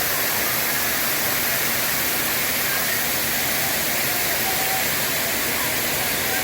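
Artificial waterfall: a steady rush of falling water splashing into a pool.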